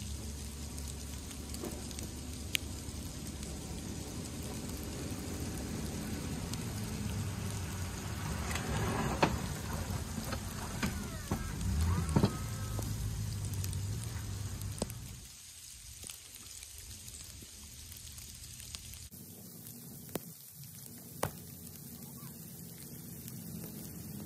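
Pickup truck with a plow blade driving past with its engine running and the blade pushing snow along the pavement. It grows louder as it approaches, is loudest with some sharp clicks and scrapes as it passes about halfway through, then drops away quickly as it moves off.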